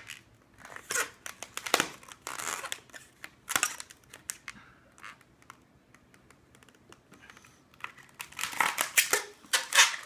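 A long inflated modelling balloon being twisted and squeezed by hand to shape a balloon dog's head: irregular rubbery rubbing and squeaking in short bursts, busiest near the end.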